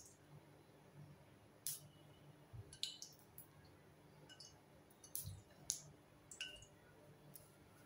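Faint, scattered sharp clicks and metallic clinks, several with a brief ring: a steel ladle knocking against a stainless steel kadai as vegetable oil is poured in.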